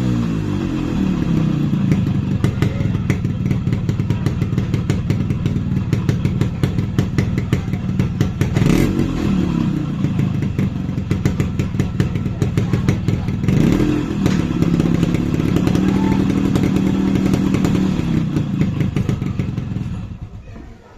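Yamaha RX135's single-cylinder two-stroke engine on its stock exhaust, idling with a rapid popping beat. It is blipped once about nine seconds in, then revved up and held at a higher speed for several seconds before dropping back, and the sound falls away just before the end.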